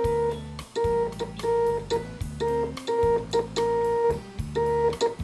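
Instrumental intro music with a steady beat.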